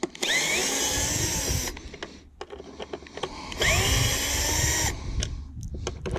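Power drill-driver backing out screws from plastic trim panels, run twice for about a second and a half each, its motor whine rising as it spins up. Light clicks between the runs.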